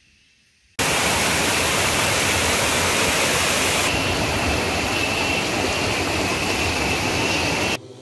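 A loud, steady rush of water that starts suddenly about a second in. About halfway it changes tone, becoming a fast stream tumbling over rocks, then it cuts off abruptly just before the end.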